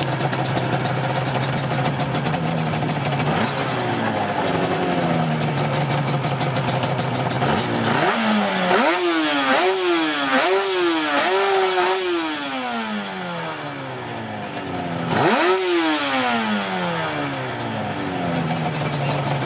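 Yamaha RD350 two-stroke parallel-twin motorcycle engine idling steadily, then, about eight seconds in, blipped through a run of quick revs that each rise and fall back. A single higher rev follows about fifteen seconds in, and the engine then settles back to idle.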